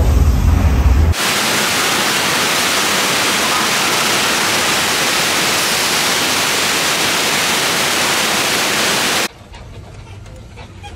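Low, heavy rumble of the earthquake simulation for about a second, then a loud, steady rush of the staged flood as a torrent of water pours across the set. The rush stops suddenly about nine seconds in, leaving only quieter outdoor sound.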